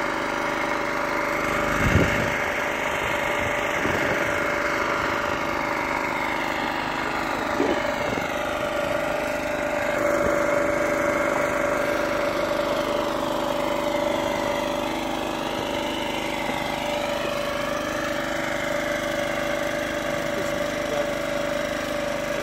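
Portable generator engine running steadily while it powers a hot-wedge geomembrane welder, with a steady tone that grows stronger about ten seconds in. A single thump comes about two seconds in.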